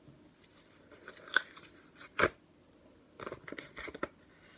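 A small cardboard package being opened by hand: two sharp snaps, the louder about two seconds in, then a run of crinkling and tearing of card and paper.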